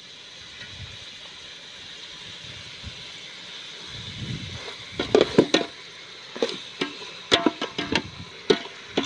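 A metal ladle stirring chicken pieces in a metal pot, knocking and scraping against the pot's sides in a quick, uneven run of sharp metallic clacks that starts about halfway through.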